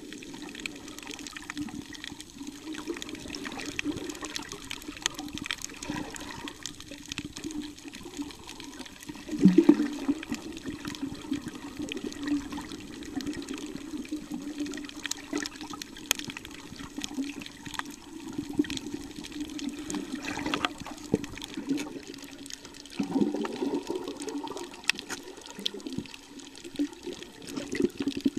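Muffled water sloshing and gurgling heard from a camera just under the surface while snorkeling, with a steady low rush and many faint scattered clicks. Two louder surges come about a third of the way in and again about four-fifths of the way through.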